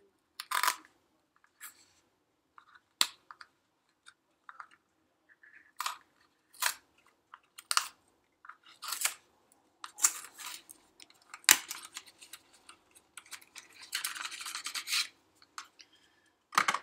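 White cardboard and paper packaging handled while a box is opened: scattered short rustles, taps and clicks, with a sharp snap about two-thirds of the way in and a longer sliding rustle of paper shortly after.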